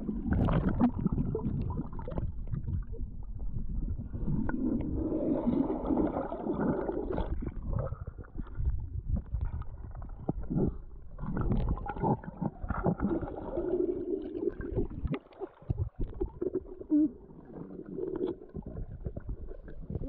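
Muffled underwater sound from a submerged camera: water rumbling and gurgling, with irregular knocks and swells as hands grab at a fish on the stream bed.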